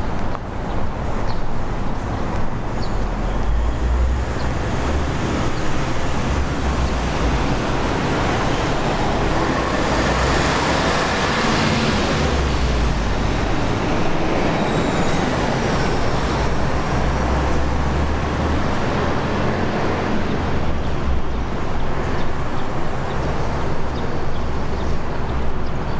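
Road traffic noise, steady throughout, with a vehicle passing loudest about ten to thirteen seconds in and a brief high falling squeal just after.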